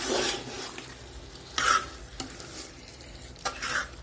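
Chicken curry being stirred in a pan, with three scraping strokes of the stirring utensil against the pan, over a faint frying sizzle.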